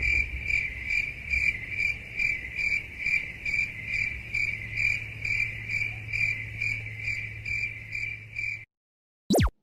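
Crickets chirping, the stock 'awkward silence' meme sound effect: even, high-pitched chirps about two and a half times a second over a low steady hum. The chirping stops shortly before the end, and a quick falling whoosh follows.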